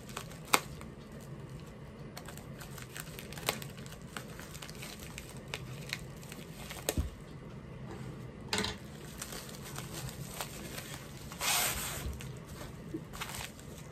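Wrapping on a rolled diamond painting canvas crinkling and tearing as it is unwrapped by hand, with scattered small clicks and a few louder rustles, the longest near the end.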